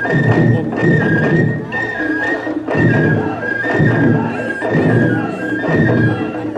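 Massed Japanese taiko drums beaten in a driving rhythm, heavy low strokes about every half second to second, with a high held melody line stepping between a few notes over them.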